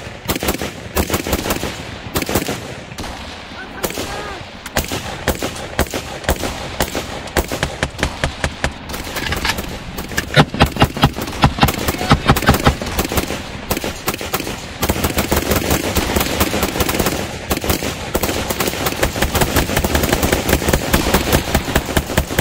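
Rifle gunfire: many shots in quick strings with no real pause. About ten seconds in comes a loud, even run of about four shots a second.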